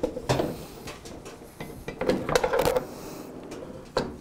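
Metal clinks and knocks as a motorcycle's rear wheel is taken out of the swingarm, with the brake caliper and its bracket handled. There is a short ringing clatter about two seconds in and a louder knock near the end.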